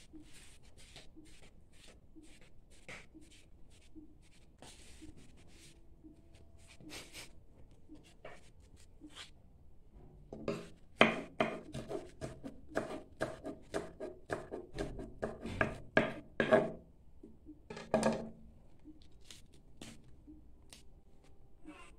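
Kitchen knife chopping tender squash-vine shoots and leaves on a wooden cutting board: a quick run of about three strokes a second, starting about halfway through and lasting some six seconds, with one last stroke after it. Before that, soft snapping and rustling as the shoots are stripped by hand.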